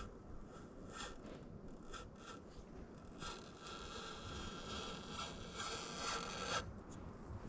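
Tight-fitting brake master cylinder piston with new rubber seals being worked into its bore, scraping and rubbing for about three seconds before stopping suddenly. A few light clicks of parts come before it.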